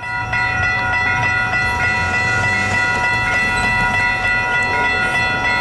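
Locomotive multi-chime air horn sounding one long, steady blast, with a regular light ticking about three times a second and a low rumble underneath.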